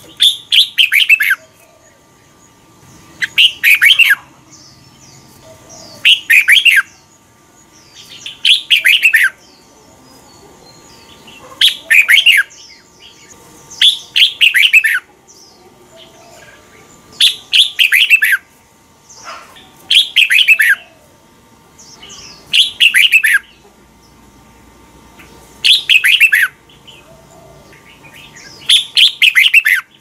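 Red-whiskered bulbul singing short, loud phrases of quick whistled notes, about one phrase every two to three seconds.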